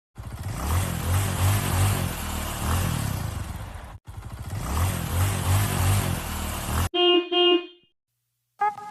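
A motorcycle engine running with loud wind and a low pulsing throb, cut off briefly about four seconds in. Then it stops, and a vehicle horn gives two short toots, followed by a short silence and the start of music with a steady beat near the end.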